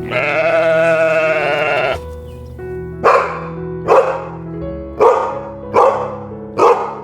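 A long, wavering bleat lasting about two seconds, then five short, sharp bark-like calls about a second apart, over background music.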